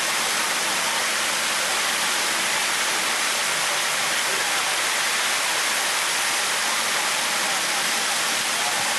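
Steady rushing hiss of water fountain sprays, falling as a curtain from the wings of a stainless-steel airplane sculpture and jetting across the pond surface at its base.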